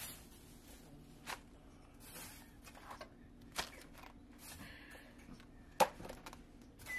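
Scattered light knocks and clicks of food packages and utensils being handled during taco preparation, the sharpest a little before the end, over a faint steady hum.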